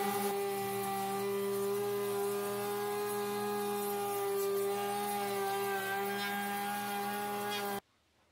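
Table-mounted wood router running at a steady high whine while the edge of a 3/4-inch MDF subwoofer box is fed past the bit. The whine cuts off suddenly near the end.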